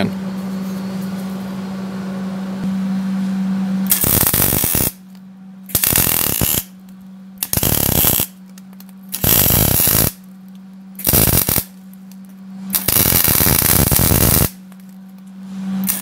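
Wire-feed welder arc crackling as a steel sleeve is welded into square steel tubing, the trigger pulled in seven short bursts of about a second each, one a little longer, starting about four seconds in.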